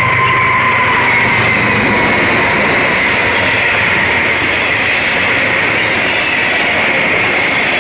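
Freight train passing at speed close by: the diesel locomotive goes past at the start, then a steady loud rush of steel wheels on rail and rattling autorack cars rolling by.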